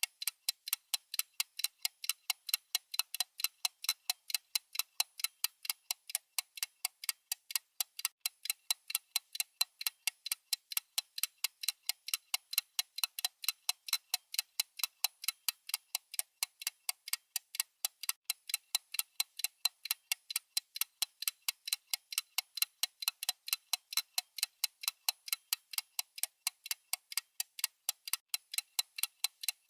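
Clock-style ticking sound effect of a countdown timer: a fast, even run of sharp, bright ticks that keeps a steady beat.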